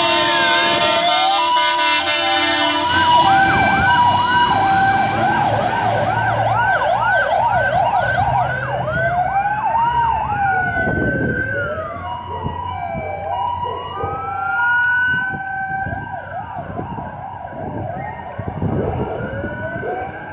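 Sirens of several fire engines wailing and yelping over one another, running on an emergency call. Loud air horns blast for the first few seconds. The sirens then fade steadily as the convoy drives away.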